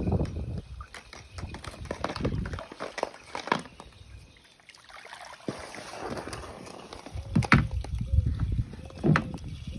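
Water sloshing as a pool skimmer net is drawn through a swimming pool, with a few sharp knocks as hollow plastic eggs bump together in the net.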